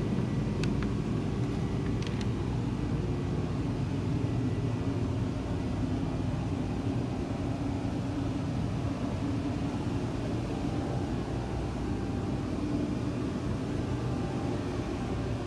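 Steady low mechanical hum and rumble of machine-shop background noise, with a few faint clicks in the first two seconds.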